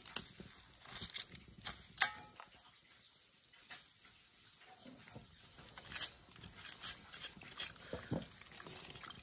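Wet squelching and scattered soft clicks as a hand squeezes and stirs soaked food pieces in a bowl of liquid. The sharpest click comes about two seconds in.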